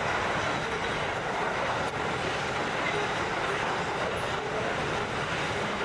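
Container wagons of a long intermodal freight train rolling past at speed: a steady, unbroken noise of steel wheels running on the rails.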